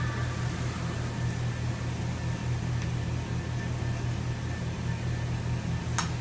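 A steady low hum over an even hiss, with one short sharp click about six seconds in.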